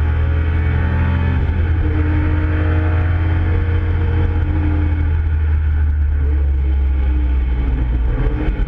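Nissan Skyline GT-R (KPGC10) S20 straight-six engine running hard on track, heard from inside the cabin, its pitch shifting as the revs change through a corner.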